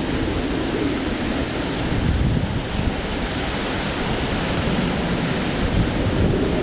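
Strong typhoon wind blowing steadily, with a faint wavering howl and wind rumbling on the microphone.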